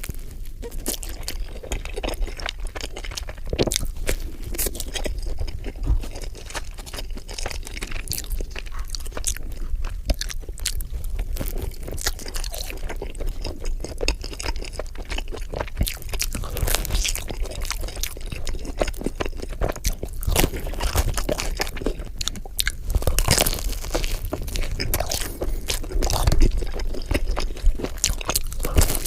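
Close-miked pizza eating: crunchy crust bitten and chewed, with many irregular crackling crunches.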